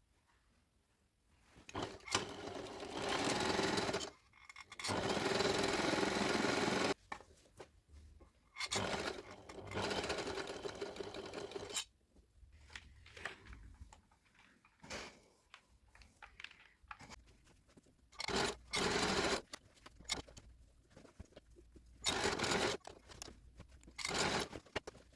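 Home sewing machine stitching in stop-and-start runs, each lasting from about a second to a few seconds, with quiet pauses between. The longest runs come in the first half.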